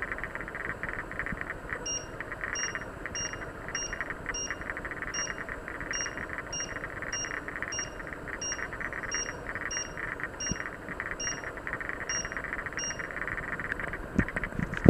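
Glass-ceramic hob touch control beeping in a run of short high beeps, about two a second, as a finger holds the button and the setting on the display steps up; the beeps start about two seconds in and stop near the end. A steady hiss runs underneath, and a few knocks come at the very end.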